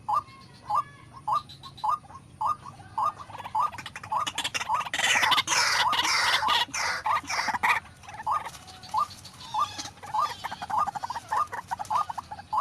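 White-breasted waterhen calling: a steady run of short, rising notes, about two to three a second. Midway comes a louder, harsher stretch of dense noise lasting about four seconds before the regular notes resume.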